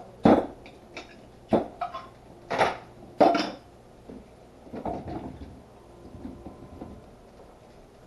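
Kitchen things being handled: a run of sharp knocks and clunks in the first three and a half seconds, then fainter clatter.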